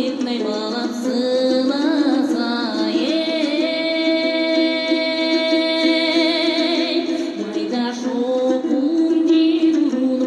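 Background music with a singing voice; about a third of the way in the voice holds one long, wavering note for several seconds.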